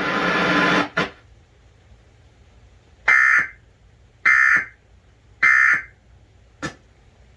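Emergency Alert System end-of-message data burst: three short, identical buzzy digital squawks about 1.2 seconds apart, marking the end of the alert. The loud broadcast audio before them cuts off with a click about a second in, and another click follows the last burst.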